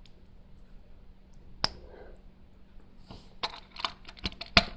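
Small hard plastic clicks and taps of Lego pieces being handled: one sharp click about a second and a half in, then a quick run of clicks and knocks near the end.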